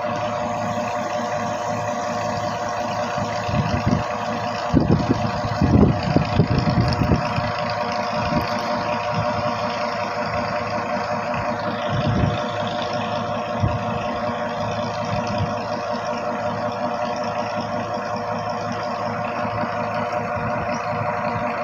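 An engine running steadily with an even hum. A few irregular low thumps come through, most of them between about four and eight seconds in.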